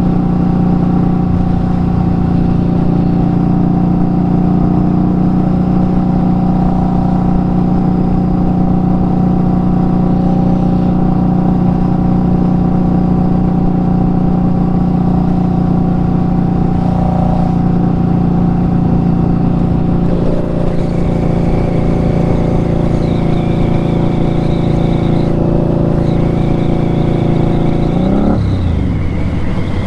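Indian Scout Bobber Twenty's liquid-cooled V-twin engine running at a steady cruising speed while the motorcycle is ridden. Near the end the engine pitch drops briefly and then climbs again.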